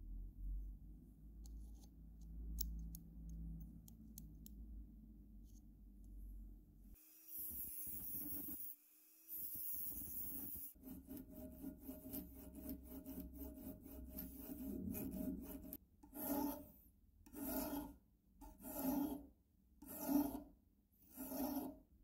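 Hand file rasping on a small steel piece being cut into a new padlock key. Faint clicks of the lock's metal parts being handled come first. Filing then starts about seven seconds in, with quick short strokes, and ends in five slow, even strokes.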